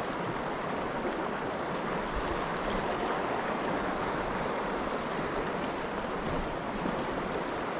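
Steady rush of a fast-flowing creek, its choppy current running over a shallow stream bed.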